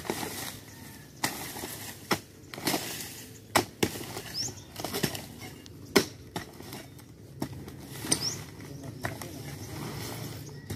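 Mattock blades chopping into soil and old wood: a string of irregular knocks and thuds, roughly one every half second to a second.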